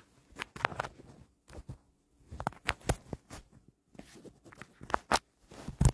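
Irregular clicks, taps and light rustling of a smartphone being handled close to its microphone, with short quiet gaps between them.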